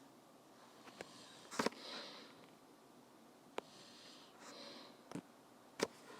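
A person breathing in sharply through the nose a few times in a small room, with several sharp clicks in between.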